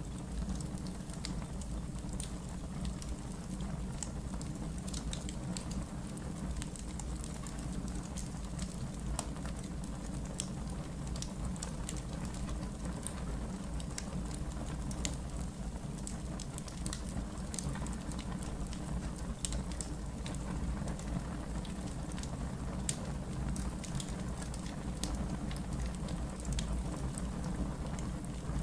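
Wood fire burning in a fireplace: irregular sharp crackles and pops of the burning logs over a steady low rumble.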